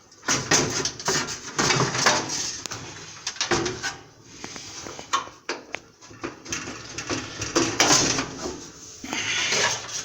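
Irregular clicks, knocks and rattles of hands working on the parts of an electric dryer being taken apart, with short bursts of scraping in between.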